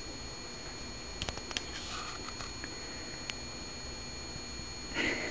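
Plastic carrier bag crinkling and ticking faintly as a cat shifts against it, with a short louder rustle near the end, over a steady hiss and a faint high-pitched whine.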